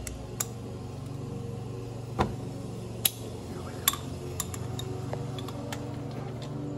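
Sharp metal clicks and clinks from a ratchet and socket being handled and fitted up against a car's underbody, over a steady low hum.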